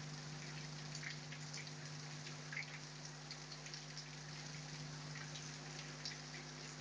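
Heavy rain falling steadily, with individual drops ticking sharply now and then over the even hiss. A low steady hum runs underneath.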